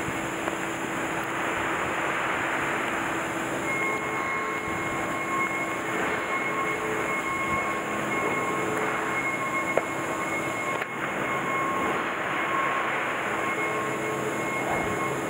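Steady hum and hiss of running industrial machinery, with faint steady whining tones over it and a single small click about ten seconds in.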